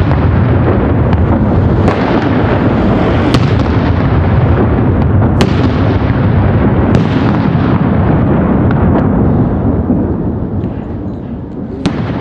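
Preburners of Pirotecnica San Severo Rambo 31K flash-banger firecrackers burning loudly and steadily, with sharp pops every second or two. The burning dies down over the last couple of seconds.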